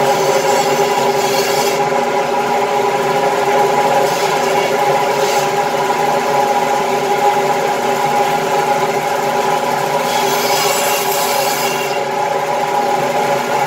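Meat band saw running with a steady hum. Three times, for a second or two each, a higher hiss joins in as the blade cuts through the bone-in beef rib.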